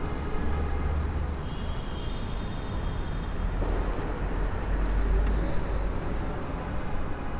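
Steady rumble of road traffic passing over and around the underpass, with a few faint high tones about two seconds in.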